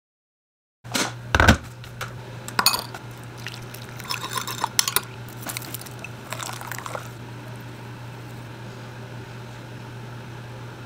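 Tableware clatter: a glass jar, its metal lid and a metal spoon clink and knock against ceramic bowls on a stone counter. About four seconds in, seasoning is shaken from the jar in a short run of rattles. A steady low hum runs underneath.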